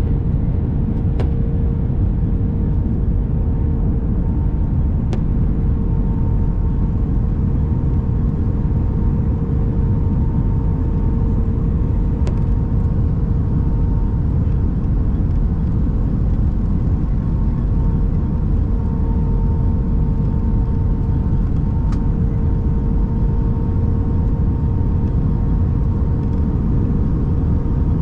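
Airbus A319 cabin noise: a steady low rumble of engines and airflow with a constant hum, and a few faint ticks.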